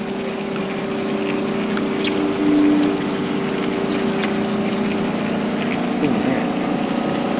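A steady motor hum made of several even tones, with crickets chirping at a regular beat above it. A brief falling tone passes about six seconds in.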